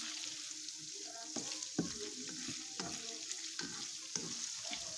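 Diced tofu frying in hot oil in a wok, sizzling steadily, with a spatula scraping and knocking against the pan at irregular moments as the cubes are stirred while they crisp.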